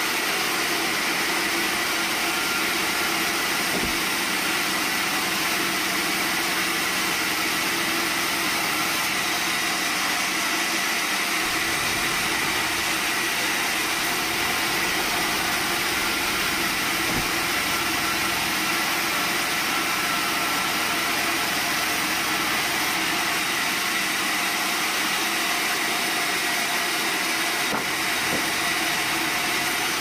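Band sawmill running steadily, its blade cutting lengthwise through a softwood log, with a high steady whine over the machine noise and a few faint knocks.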